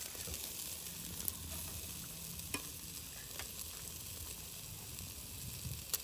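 Chunks of meat sizzling steadily over charcoal on a small round grill, with a few short sharp clicks.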